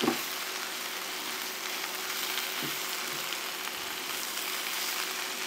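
Shredded sweetheart cabbage and spinach sizzling steadily in an oiled frying pan over high heat as they are tossed, the water in the greens hissing off as steam.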